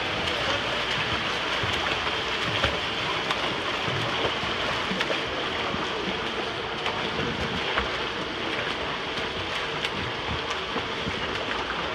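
Swimmers doing freestyle laps in an indoor pool, their arm strokes and kicks splashing the water: a steady churn of splashing with small sharp slaps scattered through it.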